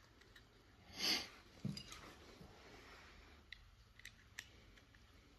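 Small hard parts of a pair of headphones being handled: a short rustling scrape about a second in, a soft knock, then a few light plastic clicks.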